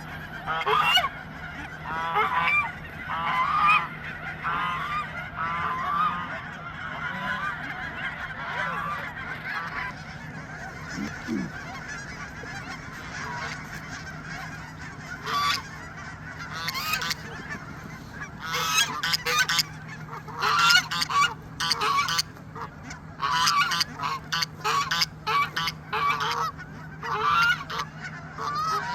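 A flock of geese honking, many overlapping calls. They come thick in the first few seconds, thin out for a while, then pick up again and grow louder through the second half.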